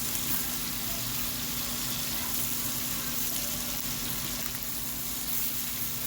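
Chicken pieces frying in oil and butter in a pan, a steady crackling sizzle as they brown.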